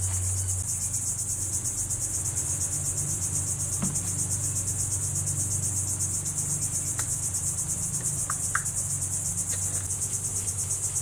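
Insects chirring in a continuous high-pitched, rapidly pulsing trill over a low steady hum, with a few faint light clicks in the second half.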